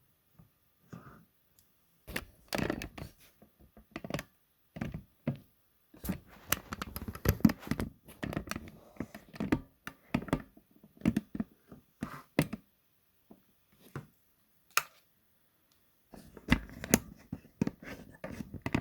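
Hands handling small objects: irregular clicks, knocks and short rustling noises, busiest in the middle and again near the end, with quiet gaps between.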